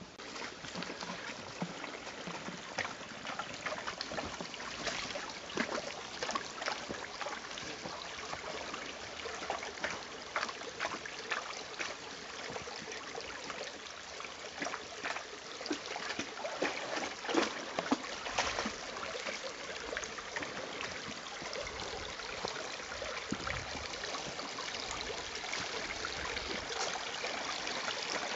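Shallow stream trickling steadily, with many small irregular splashes as two Akita inu dogs wade through the water.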